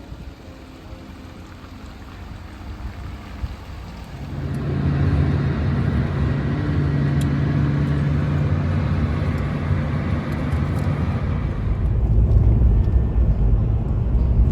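A vehicle driving: engine hum and road noise. It gets louder about four seconds in, and a heavier low rumble comes in near the end.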